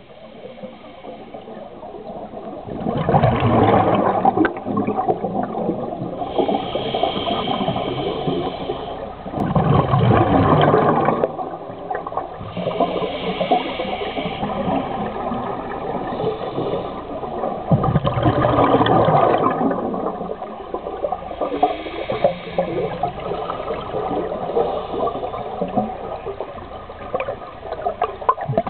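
Scuba diver breathing through a regulator underwater: a hiss on each inhale alternating with a bubbling rush of exhaled air, in a slow cycle of about three to four breaths.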